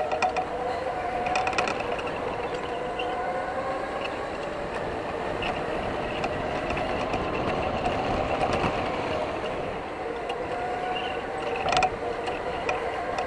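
Electric indoor go-kart running at speed: a steady motor whine that drifts up and down in pitch through the corners, over tyre and chassis noise. A few short clicks, with the sharpest one near the end.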